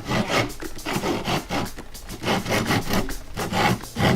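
Repeated rubbing and scraping strokes on wood, several a second, in an irregular back-and-forth rhythm.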